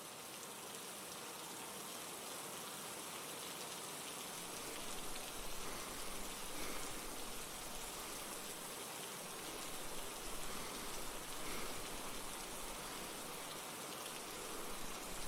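Steady rain falling, a fairly quiet even hiss that swells slightly now and then.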